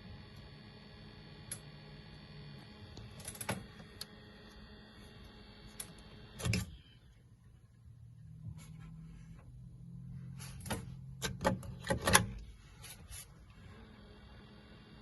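Arctic Freezer VRM fan running flat out with a whine of several steady tones over a low hum, the strange noise its owner complains of. Sharp clicks and knocks come now and then, with a quick run of them near the end. The whine drops away for several seconds in the middle and then comes back.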